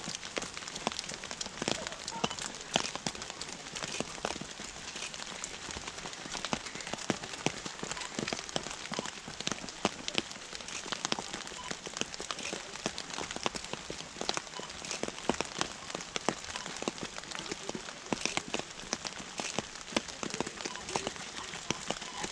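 Steady rain, with many close raindrops ticking irregularly over a constant hiss.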